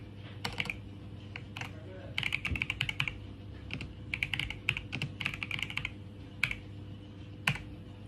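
Typing on a computer keyboard: quick irregular bursts of key clicks, then one lone harder keystroke near the end as the Enter key sends the command.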